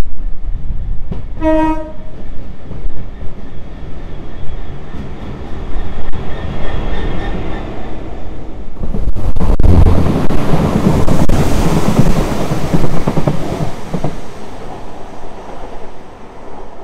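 DRS Class 66 diesel locomotive running light engine, its two-stroke diesel growing louder as it approaches and passes beneath, loudest about ten seconds in, then fading. A short single-note horn blast sounds about a second and a half in.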